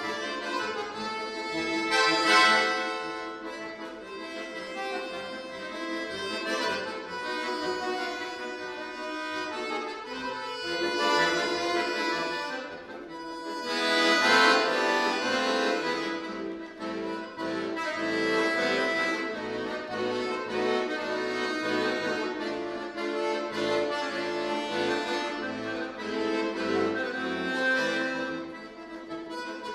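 Solo chromatic button accordion playing a busy passage of many notes, with the bellows swelling louder about two seconds in and again about fourteen seconds in.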